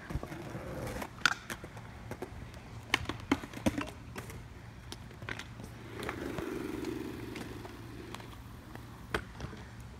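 Skateboard and kick-scooter wheels rolling on concrete, with a handful of sharp clacks of boards and scooters hitting the ground: one about a second in, a cluster around three to four seconds in, and another near the end. A rolling rumble of wheels swells for about two seconds past the middle.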